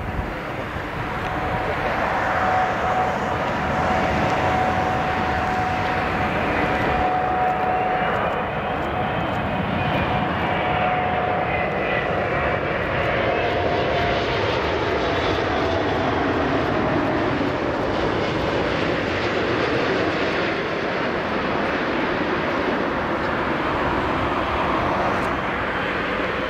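Airbus A380-861 airliner on low final approach, its four Engine Alliance GP7200 turbofans running as it passes overhead: a loud, steady rumble that swells in the first two seconds. A thin whine holds level for about the first half, then sinks slowly in pitch as the jet goes by.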